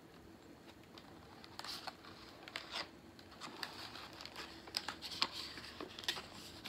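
Faint rustling and crinkling of a picture book's glossy paper pages being handled, with scattered soft clicks that grow busier as a page is taken hold of to turn near the end.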